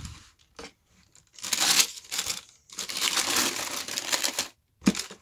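Tissue paper in a shoebox crinkling as it is pulled open and folded back, in two stretches of about a second or two each, with a short sharp knock near the end.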